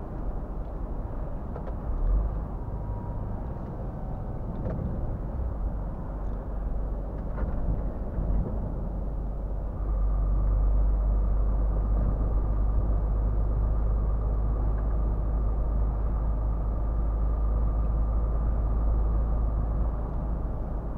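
Inside the cab of a moving Scania R450 truck: steady engine drone and tyre rumble. About ten seconds in it grows louder and a steady whine joins it.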